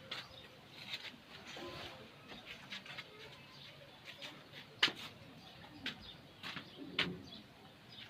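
Faint bird calls with a few sharp knocks or clicks, one about five seconds in and another about seven seconds in.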